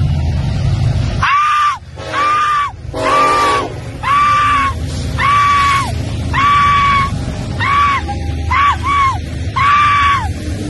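A person screaming excitedly over and over: about a dozen short, high-pitched shrieks, each under a second, as a locomotive passes close by. A low rumble fills the first second before the screaming starts.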